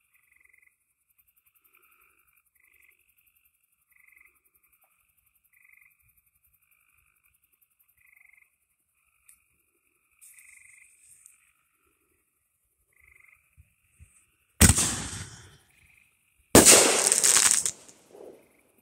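Brothers American Chief consumer firework mortar shell launching from its tube with a sharp bang about fifteen seconds in. It bursts overhead with a loud bang about two seconds later, followed by a second of crackling. Before it, frogs call faintly at a steady pace, one call every second or two.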